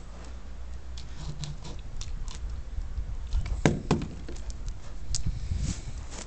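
A husky's claws and paws clicking and pattering on a concrete terrace floor as it walks about, with a sharper knock about three and a half seconds in, over a low rumble of phone handling.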